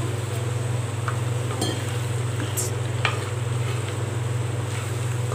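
Wooden spatula stirring boiled white peas in wet masala gravy in a clay pot, with a light sizzle from the pot on the flame and a few faint clicks. A steady low hum runs underneath.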